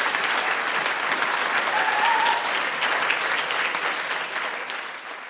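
Audience applauding, a dense spread of clapping that fades out near the end.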